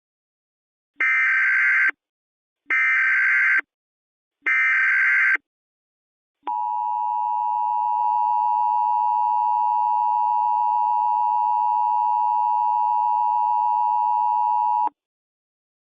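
Emergency Alert System alert opening: three bursts of SAME header data, each a harsh digital screech a little under a second long, then the steady two-tone EAS attention signal held for about eight seconds before it cuts off.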